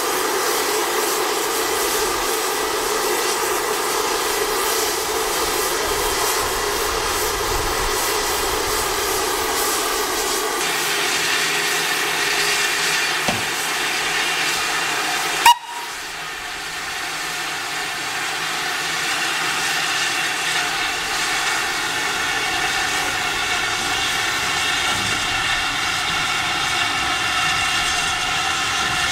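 Steam hissing steadily from LSWR T9 4-4-0 steam locomotive 30120 standing on a turntable, with one sharp click about halfway through.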